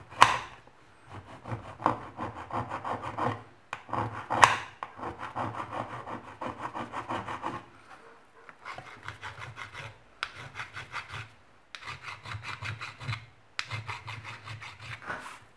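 Flat metal hand file rasping across the edge of a homemade rain-sensor piece in quick back-and-forth strokes, smoothing the edge even. The strokes come in runs of a few seconds with short pauses between them, with a sharper scrape at the start and another about four seconds in.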